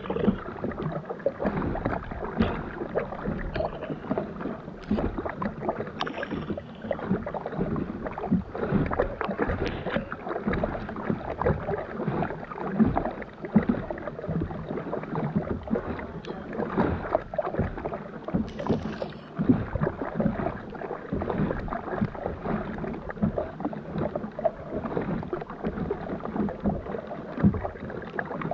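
Water splashing and sloshing as a sit-on-top kayak is paddled: the double-bladed paddle dipping in on alternate sides and water lapping against the hull close by.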